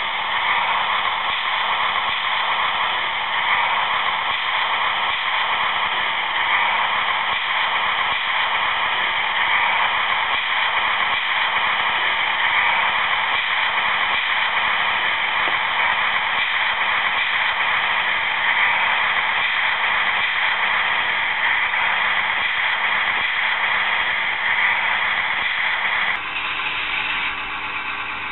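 The sound module of a Viessmann HO-scale Strukton track tamping machine model plays a steady hissing working sound through the model's small loudspeaker, swelling about every three seconds. Near the end it switches to a quieter, steady diesel-engine idle hum.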